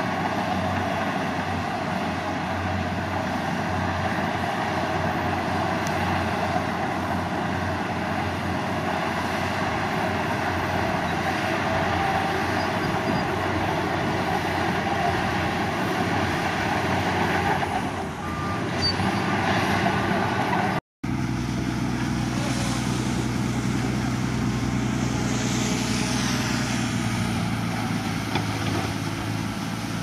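Heavy diesel earthmoving machinery running continuously under work. About 21 seconds in there is a brief break, after which a steadier engine hum with a clearer pitch takes over.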